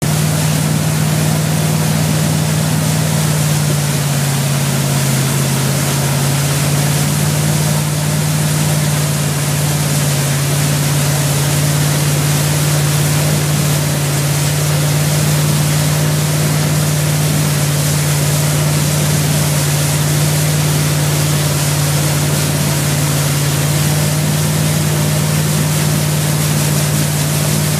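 Tow boat's engine running steadily at towing speed, a constant drone whose pitch dips slightly a few seconds in and then settles back, over a steady rushing hiss of wake water and wind.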